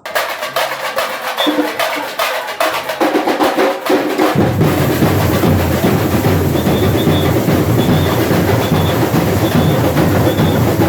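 Samba carnival bateria (drum section) playing. For the first four seconds only the higher drums and snares are heard. At about four seconds the deep bass drums come in, and the whole section plays a steady samba rhythm.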